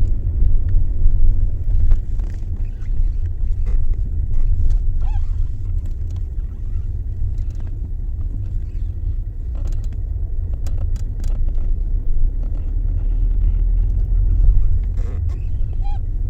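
Steady low rumble of a car with its engine running, heard from inside the car, with a few light clicks around the middle, in a check that the clutch pedal works.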